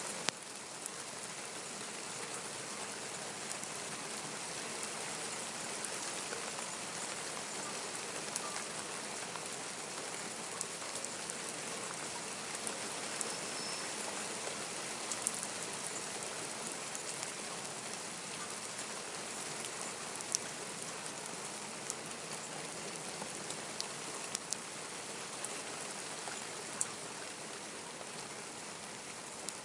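Steady rain falling, a constant patter with scattered sharper drop ticks close by.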